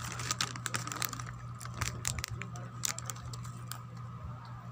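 Irregular crinkles and clicks of a plastic snack packet being handled, over a steady low hum.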